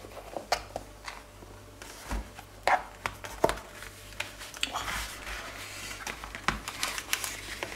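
Hands opening and handling a snap-fastened faux-leather glasses case on a wooden table: scattered short clicks and taps as the snap comes undone and the case flap is folded back.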